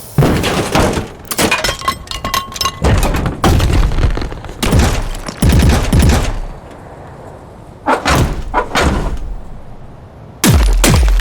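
Designed sci-fi robot sound effects played one after another: a string of heavy metallic hits, clanks and mechanical movements, some ringing and some dropping in pitch, with short quieter gaps of background ambience between them.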